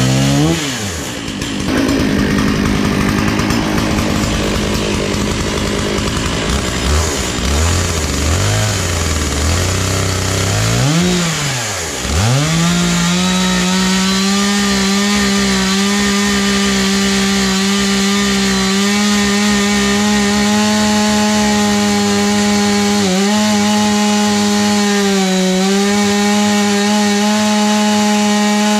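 Stihl MS460 two-stroke chainsaw with a 36-inch bar and ripping chain in an Alaskan chainsaw mill: the engine revs up and down unevenly for the first dozen seconds. From about twelve seconds it is held at a steady full throttle, under load as it rips along the oak log, with two short dips in speed near the end.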